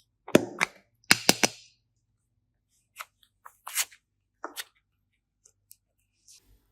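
A series of sharp clicks and snaps: two quick groups of two or three loud clicks in the first second and a half, then scattered fainter clicks.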